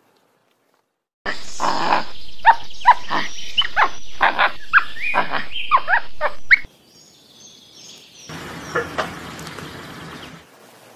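Animal calls: a rapid run of about a dozen loud, short calls that slide up and down in pitch for about five seconds, starting a little over a second in, then a quieter, rougher call near the end.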